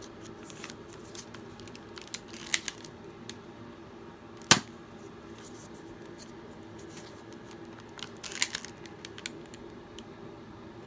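Nerf Glowshot pistol being handled and reloaded: light plastic clicks and rattles, with one sharp snap of a dart being fired about four and a half seconds in, over a low steady hum.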